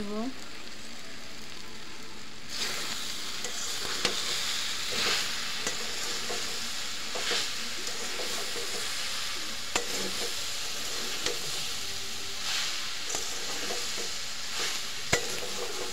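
Jujubes and spices frying in a metal karahi, sizzling as a metal spatula stirs and scrapes through them, with a few sharp clinks of the spatula against the pan. The sizzle starts about two and a half seconds in.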